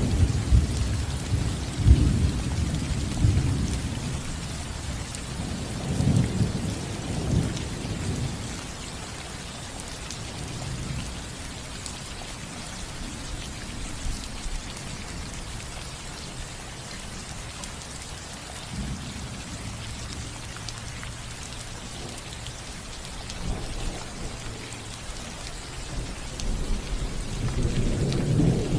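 Steady rain falling on a house roof, an even hiss, with thunder rumbling low at the start, again about six seconds in, and building again near the end.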